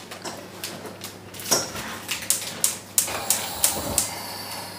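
Irregular clinks and knocks of kitchen utensils against dishes and pans, about a dozen scattered over a few seconds.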